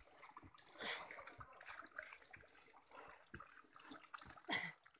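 Wet sago pith being kneaded with water in a sago-frond trough: irregular splashing, squelching and dripping with scattered small knocks, louder splashes about a second in and near the end.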